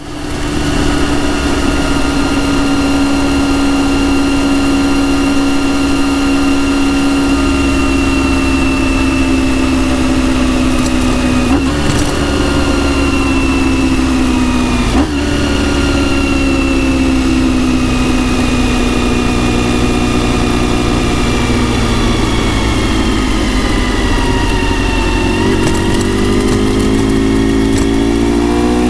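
Honda RVF400 (NC35) 90° V4, with gear-driven cams and a TSR slip-on silencer, running steadily under way. Its revs ease slowly down for most of the time, then climb near the end as it accelerates. Two brief knocks sound in the middle.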